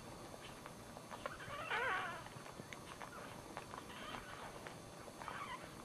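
Newborn dachshund puppy crying in high, wavering squeals, loudest about two seconds in and fainter twice later, as its mother licks it clean with small wet clicks.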